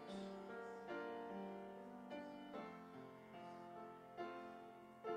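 Piano accompaniment to a gospel song playing an instrumental interlude: sustained chords, with a new chord struck about every second.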